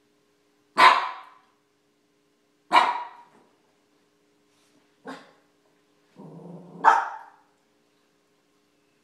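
A small dog barking four times, about two seconds apart; the third bark is short and quieter, and the last is led in by a brief low growl.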